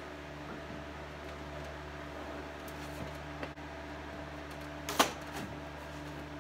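Vinyl roof covering being smoothed and pressed by hand onto a glue-coated car roof, with soft handling and rustling over a steady low hum. A small click comes about three and a half seconds in, and a sharp snap about five seconds in.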